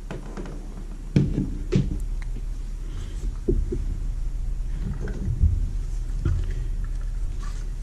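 Handling noise: a few light knocks and clicks as battery chargers and batteries are picked up and moved about, over a steady low hum.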